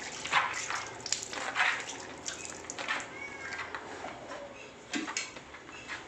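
Milk squirting into a steel pail as an Indian desi cow is milked by hand: uneven spurts of hiss, several in the first three seconds, then a pair about five seconds in.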